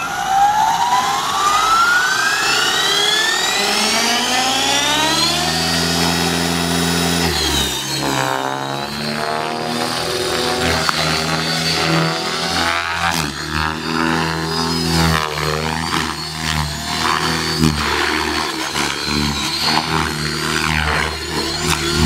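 Align T-Rex 600E electric RC helicopter spooling up, its motor and gear whine rising steadily in pitch for about seven seconds. It then keeps running at speed, the whine and rotor sound swinging up and down in pitch and loudness as it is flown through hard aerobatic manoeuvres.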